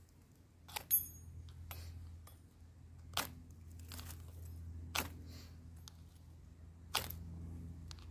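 Ferrocerium rod scraped with a steel striker: a short, sharp rasp repeated about every one to two seconds, the loudest about a second in, throwing sparks at a bundle of feather sticks that has not yet caught.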